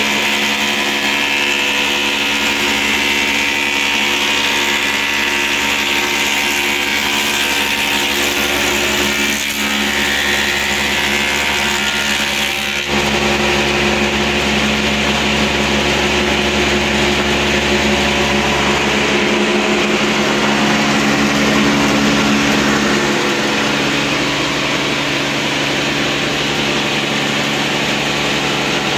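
Woodmaster planer/moulder running steadily as a board feeds through it and is cut to a crown moulding profile: a continuous motor hum with a strong cutting hiss. The tone shifts abruptly about 13 seconds in.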